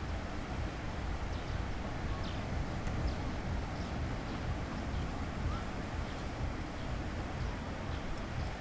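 Beach ambience: a steady wash of sea waves with wind rumbling on the microphone, and faint distant voices of people on the beach.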